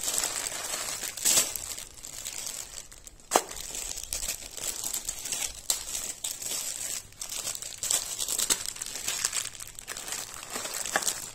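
Clear plastic jewellery bags crinkling and rustling as hands shuffle and lift the packets in a box, with one sharp click about three and a half seconds in.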